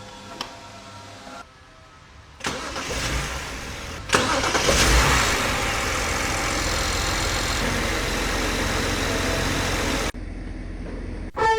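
A BMW 740's engine starting about two and a half seconds in, then running steadily. A few light clicks come before it, and the level drops sharply near the end.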